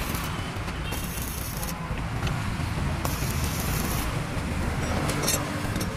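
Stick arc welding on a motorcycle's steel chassis tube. The arc crackles and hisses in spurts, about a second in and again around three seconds, with sharp spitting crackles near the end, over a steady low hum.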